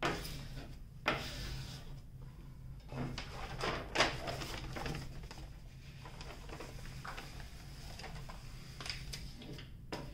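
Paper rustling and crackling as a sheet of diamond-painting release paper is folded back over the canvas and smoothed down by hand, with sharper crackles about a second in and about four seconds in, then softer rustles.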